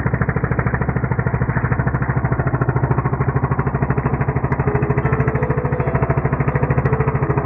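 Small gasoline engine of a fishing boat running steadily under way, a fast, even chugging.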